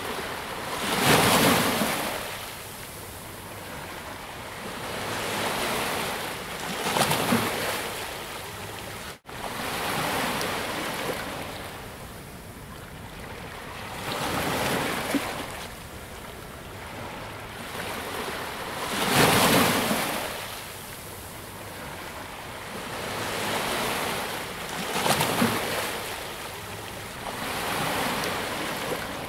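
Sea waves breaking and washing ashore, a fresh surge every four to six seconds, the loudest about a second in and again around nineteen seconds in. The sound cuts out for an instant about nine seconds in.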